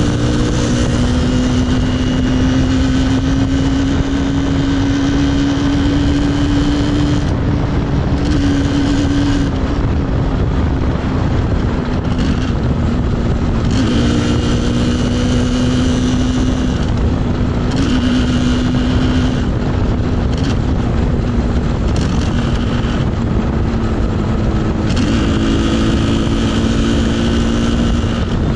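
Yamaha RD 350's two-stroke parallel-twin engine running under way. Its pitch climbs slowly for the first several seconds, then drops and builds again a few times as the throttle is closed and reopened, over a steady rush of wind and road noise.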